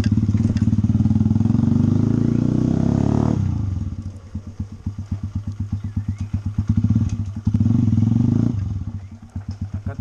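Motorcycle engine running while being ridden. It pulls steadily on the throttle, then drops to a softer putter of separate firing pulses about three and a half seconds in. It picks up again for a moment around seven seconds and falls back to the putter near the end.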